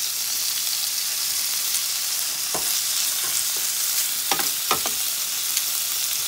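Thin-sliced chicken frying in hot oil in a pan, a steady sizzle, with a few short knocks from about two and a half seconds in.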